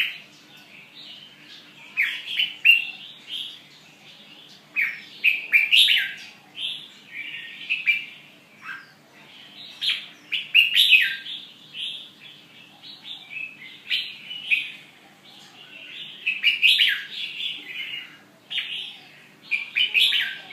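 A bird chirping in repeated bouts of quick, high chirps and twitters, each bout lasting a second or two and coming every few seconds.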